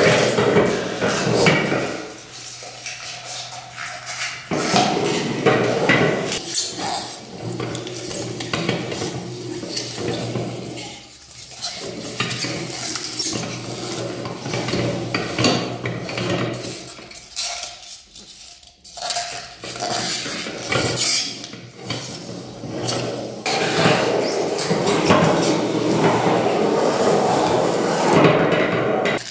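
Hand-cranked metal meat grinder chewing through polystyrene foam: dense crunching and crackling of the foam with metallic clatter from the grinder, in uneven stretches with two short pauses.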